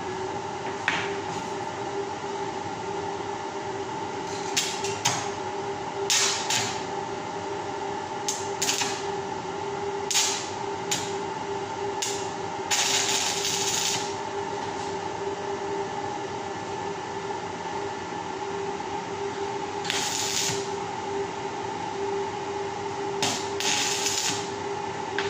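Electric arc welding on steel bars: about a dozen short bursts of crackling hiss, from a fraction of a second to about a second each, as tack welds are struck. Under them runs the steady hum of a running fan.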